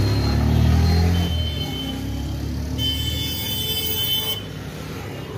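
Street traffic: a motor vehicle's engine running close by, loudest in the first second. About three seconds in comes a high-pitched whine lasting about a second and a half.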